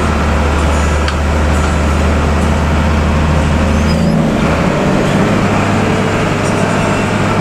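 Intercity bus engine running and road noise, heard from inside the cabin; the engine's low hum steps up in pitch about four and a half seconds in.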